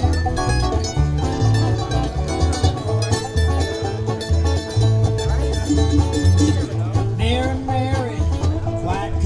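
A live acoustic bluegrass band playing an instrumental passage: guitar and mandolin picking over the steady plucked notes of an upright bass.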